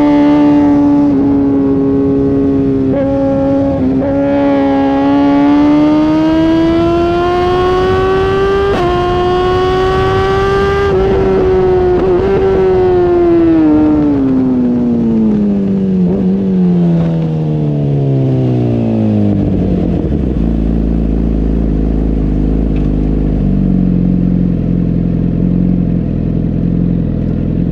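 Sportbike engine at high revs under way, its pitch climbing with brief dips about 3, 4 and 9 seconds in as it shifts gears. It then falls steadily as the bike slows, and settles to a low, steady idle about 20 seconds in.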